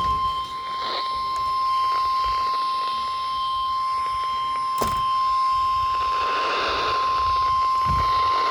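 NOAA Weather Radio warning alarm tone: one steady, unbroken single tone near 1 kHz, played through a radio receiver's speaker. It cuts off abruptly at the end, the signal that comes before a broadcast warning message.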